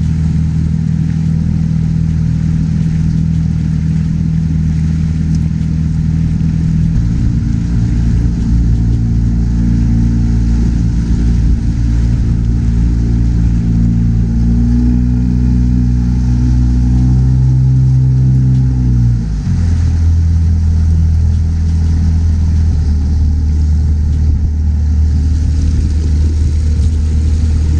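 A dinghy's small outboard motor running under way, which the owner thinks could use new spark plugs. About a quarter of the way in it speeds up and its pitch climbs steadily for about ten seconds, then drops suddenly to a lower, steady drone.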